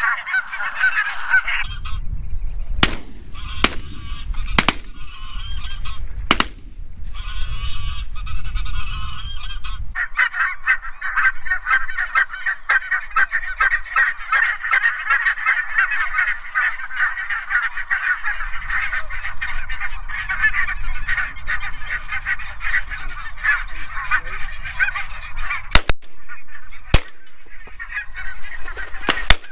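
Geese honking in a dense, continuous chorus of overlapping calls. A few sharp clicks come a few seconds in and again near the end.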